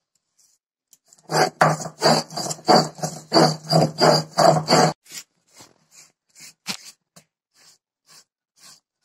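Stone roller of an ammikallu grinding stone being rubbed back and forth over wet, crushed leaves on the stone slab, about three strokes a second, starting about a second in. The strokes turn faint after about five seconds.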